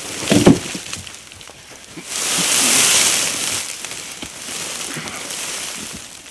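A large net-wrapped round straw bale being rolled over dry leaves and twigs, with rustling, crackling straw and litter, and a loud scratchy rush of straw from about two seconds in as it turns past close by. A short heavy low thump about half a second in is the loudest sound.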